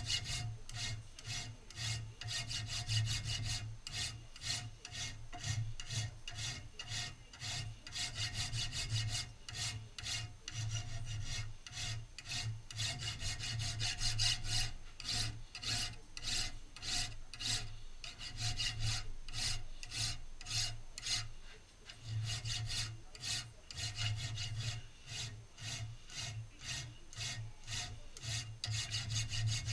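Hand file worked rapidly back and forth over a metal gun part held in a vise: a steady run of file strokes, about three a second, with a brief pause about three-quarters of the way through.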